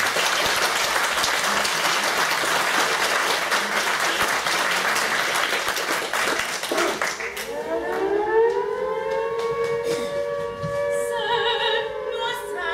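Audience applauding, dying away about seven seconds in. A sustained tone then starts, rising in pitch and then holding steady, with a slight waver near the end.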